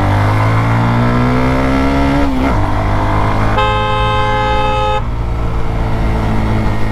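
Motorcycle engine rising in pitch as it accelerates for about two seconds, then dropping back. A vehicle horn sounds for about a second and a half in the middle.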